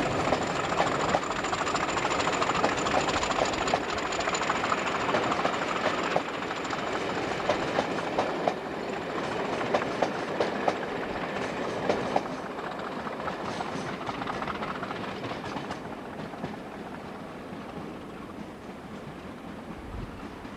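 Diesel-hauled passenger train, a Class 50 locomotive with its coaches, running past with its wheels clicking over rail joints. The clicks stop about twelve seconds in, and the sound then fades as the train draws away.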